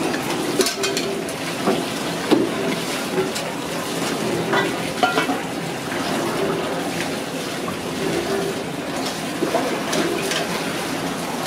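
Water splashing and sloshing as aluminium pressure cooker bodies are dunked, rinsed and emptied in a drum of water, with occasional sharp clinks of the metal pots knocking together or being set down.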